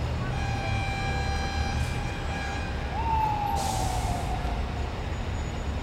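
Low rumble of a heavy truck, with a steady high whine held for nearly three seconds. About three seconds in comes a short tone that jumps up and then slides down, together with a brief hiss of air.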